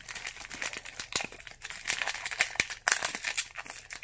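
Foil wrapper of a Pokémon trading card booster pack crinkling as it is pulled open and handled, with a dense run of irregular crackles.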